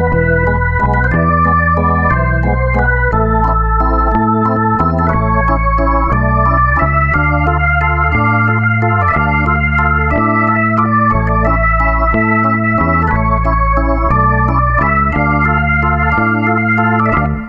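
Background music with held chords over a bass line that changes note about once a second.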